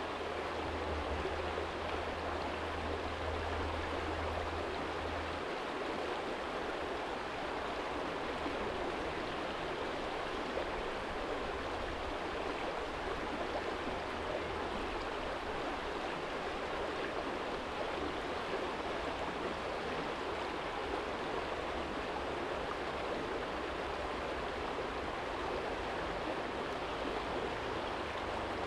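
Small stream flowing over a stony bed, a steady, even rush of water. A low hum sits under it for the first five seconds or so.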